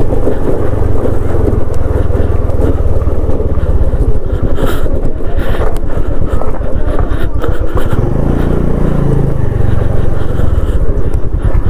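Wind buffeting the microphone of a moving scooter, a heavy rumble with a fluttering edge, over the scooter's running engine. About eight seconds in, a steady engine hum comes up for a couple of seconds.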